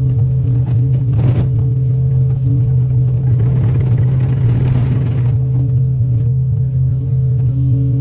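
Excavator engine running steadily under load, with a short burst of scraping about a second in and a longer scraping, crunching stretch from about three and a half to five seconds, as the machine tears at a tree stump.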